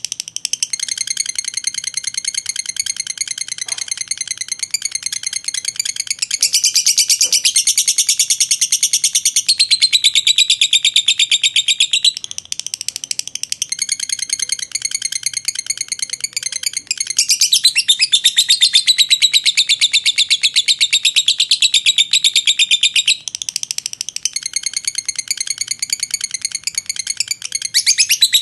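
Fischer's lovebird singing 'ngekek': one long unbroken, very rapid shrill chattering trill that swells louder and eases back every few seconds. This kind of long, sustained ngekek is the song prized in Indonesian lovebird contests.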